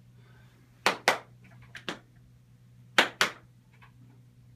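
Two double hand claps, about two seconds apart, each a quick clap-clap: the 'clap on, clap off' signal of a Clapper sound-activated switch.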